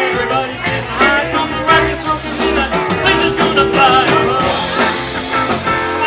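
Live rock band playing: guitars and drums with a sung vocal line.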